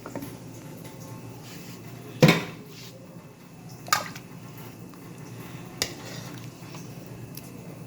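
Utensil clinking against a metal cooking pot three times, loudest about two seconds in, over a faint steady low hum.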